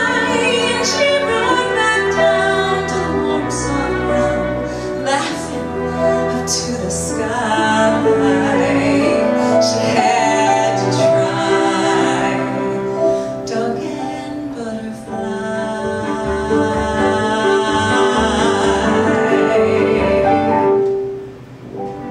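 Female vocalist singing with a small acoustic band of grand piano, violin, cello and bass in a slow ballad arrangement. The music dies away about a second before the end.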